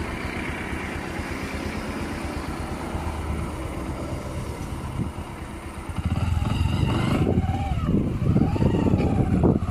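Small vehicle engine running at idle, a steady low rumble, getting louder and rougher about six seconds in.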